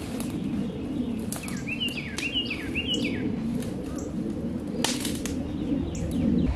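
Wild birds calling, one giving a quick run of four falling whistled notes about a second and a half in, with a few scattered chirps, over a steady low background noise.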